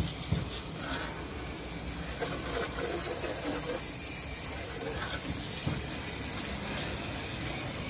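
Hand-pump pressure sprayer hissing steadily as it mists citrus pre-wash into a car's wheel arch.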